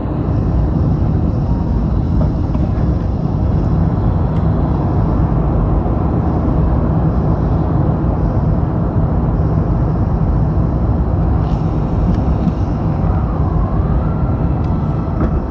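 Steady cabin rumble inside an Airbus A350-900 descending on approach: its Rolls-Royce Trent XWB engines and the rush of air over the fuselage, heard from a window seat behind the wing. A faint whine that dips and rises comes in near the end.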